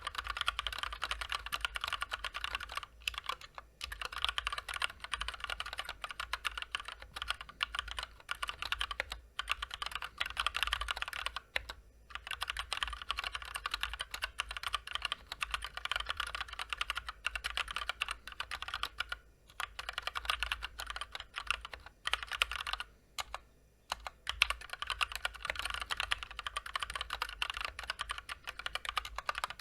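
Continuous fast typing on a Massdrop (Drop) Ctrl High Profile mechanical keyboard with linear Gateron Clear switches and double-shot PBT keycaps, stock unlubricated switches and stabilizers: a rapid clatter of key presses with short pauses now and then.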